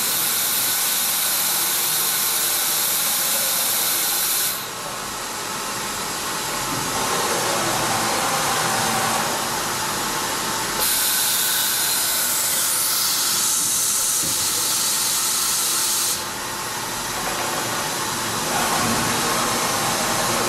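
Hwacheon D2-5AX machining centre's automatic work changer swapping a pallet onto the table, heard inside the machine enclosure: a loud, steady hiss over machine running noise. The hiss dips about four and a half seconds in, turns brighter around eleven seconds, dips again around sixteen, and rises near the end.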